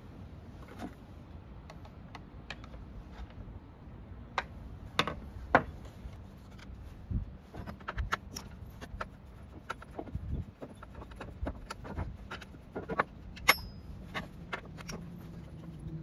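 Irregular metallic clicks and clinks of a T-handle socket wrench on the engine housing of a STIHL FS250 brush cutter as its screws are worked loose, with the sharpest clinks about five seconds in and again near the end.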